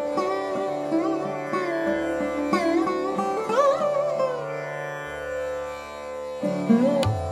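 Background music: Indian classical-style instrumental, a string melody with gliding, bending notes over a steady drone. Drum strokes come in near the end.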